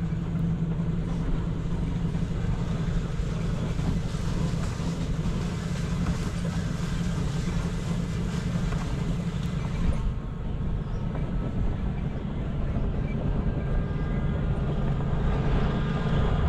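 A motor vehicle driving along: a steady engine hum with road and rattle noise.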